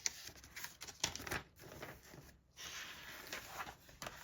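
Faint rustling handling noise with scattered small clicks.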